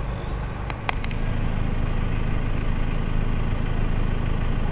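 Car engine idling with a steady low hum, after a few sharp clicks about a second in.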